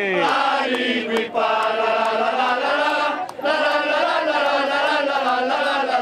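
A large group of voices chanting together in long held notes, with short breaks for breath about a second and three seconds in.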